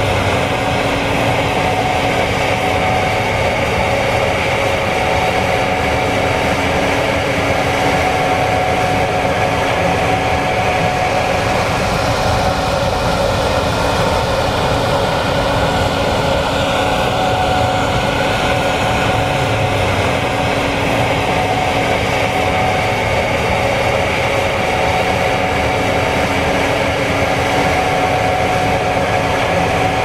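Gleaner S96 combine harvester working through soybeans at a steady pace: an even machine noise with several steady whining tones over it.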